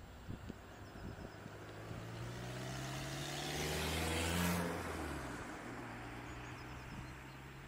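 A car drives past on the road, its engine and tyre noise swelling to a peak about four seconds in and then fading away.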